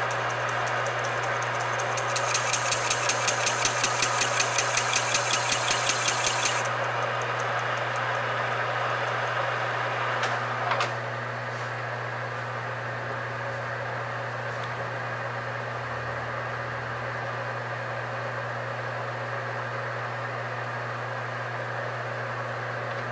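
Metal lathe running with a steady hum as the model steam-engine flywheel is machined. About two seconds in, a harsh cutting noise pulses about four times a second for some four seconds, then stops. A couple of sharp clicks come near the middle, after which the machine runs more quietly.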